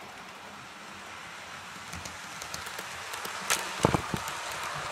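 Model railway train running along the track, its rolling hum growing steadily louder as it comes close, with sharp clicks and knocks from the wheels over the rail joints about three and a half seconds in.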